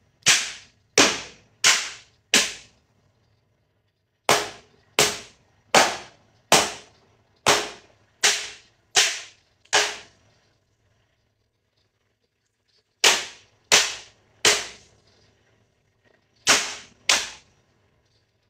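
A baking tray of piped macaron shells rapped down hard on a work counter again and again, sharp bangs about two-thirds of a second apart in four runs. The rapping knocks air bubbles out of the batter so the shells don't crack in the oven.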